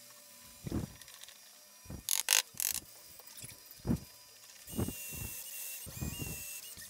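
Cordless drill-driver running as it drives screws into a plywood and pine corner joint; its motor whine starts about two-thirds of the way in and shifts pitch a few times. Before that, wooden jig parts knock as they are set in place, with a short burst of sharp clicking about two seconds in.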